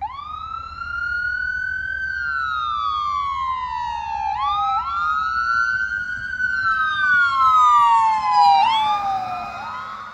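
Ambulance siren wailing in slow rising and falling sweeps, with two wails overlapping slightly out of step, over a low rumble of engine and road noise. It grows louder and then fades near the end as the ambulance drives off.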